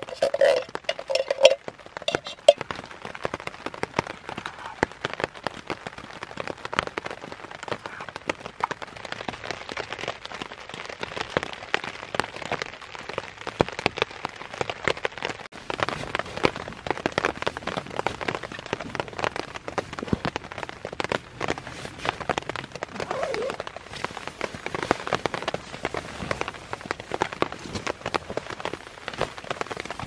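Rain pattering on a tarp overhead: a dense, steady scatter of small drop ticks, getting somewhat heavier from about halfway.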